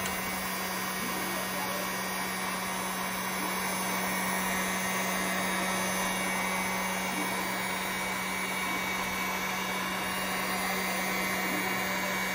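Electric heat gun running steadily, blowing hot air to dry wet foam: an even rush of air over a steady low motor hum.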